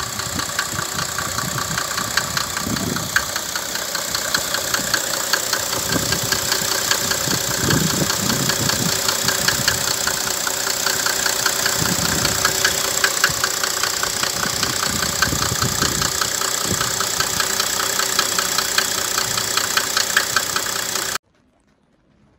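Mercedes-Benz OM603.971 3.5-litre turbodiesel straight-six idling in a W140 S350 Turbodiesel, with a steady, rhythmic diesel clatter. The sound cuts off abruptly near the end.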